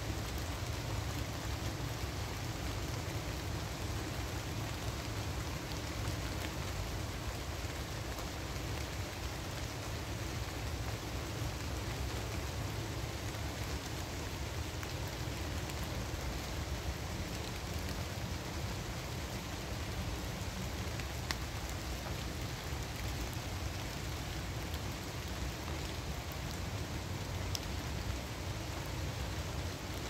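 Steady rain falling on the leaves of a forest canopy: an even hiss with a low rumble underneath and a few faint drop ticks.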